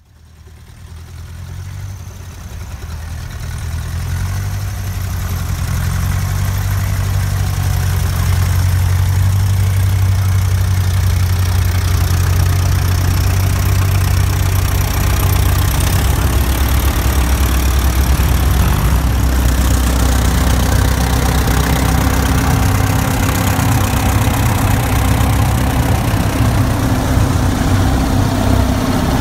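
Vintage farm tractor engine running at low speed as the tractor drives slowly past, a steady low-pitched chugging that grows louder over the first several seconds and then holds.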